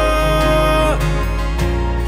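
Worship song: a man sings one long held note that drops away about a second in, over acoustic guitar.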